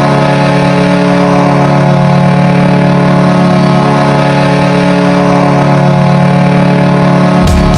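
Dallas Stars hockey goal horn sounding one long, loud, steady chord of several tones. Near the end, music with a heavy beat comes in under it.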